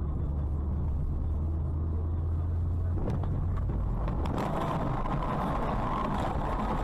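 Dashcam audio inside a car. A steady low engine and road drone is followed by a couple of knocks about three and four seconds in. Then comes a louder, harsh rushing noise as the car swerves sharply in traffic.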